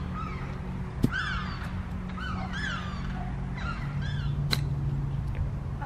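Golf club chipping balls off grass: two sharp clicks, one about a second in and another later. Throughout, a bird calls repeatedly with short rising-and-falling calls over a steady low hum.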